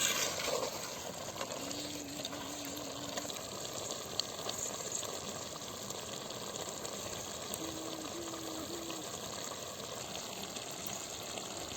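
Marinated chicken cooking down in a pan, the water it has released bubbling and sizzling steadily as it reduces.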